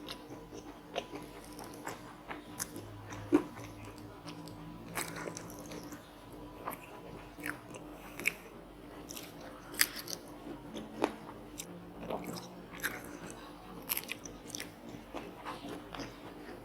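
A person chewing and biting into battered fried squid and prawns, close to the microphone. Irregular sharp crunches run throughout, the loudest about three seconds in.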